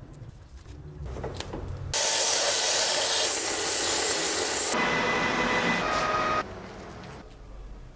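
A belt sander grinding a wooden handle piece: a loud, even hiss about two seconds in that cuts off abruptly after nearly three seconds. It switches straight to a metal lathe turning a steel part, a quieter hiss with a few steady whining tones, which stops about a second and a half later.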